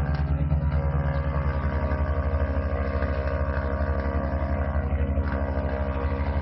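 Motorcycle engine running at a steady pitch with a fast, even pulse, held on the throttle to spin the rear tyre in a smoking burnout.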